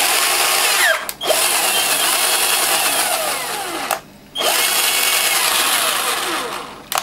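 Cordless drill, converted to an 18 V lithium-ion battery, running at speed in three runs: it stops briefly about a second in and again about four seconds in, restarting each time. During each run its whine slides down in pitch.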